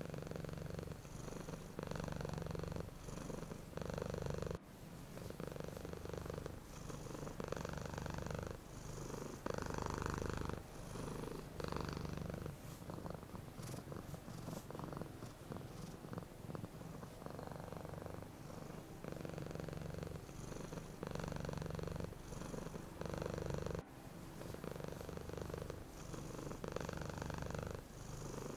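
Domestic cat purring steadily. The purr swells and fades in regular pulses of roughly one a second, following its breathing in and out.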